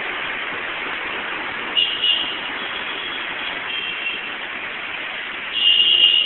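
Road traffic in heavy rain: a steady hiss of rain and tyres on a wet road, with a brief high-pitched tone about two seconds in and a louder one near the end.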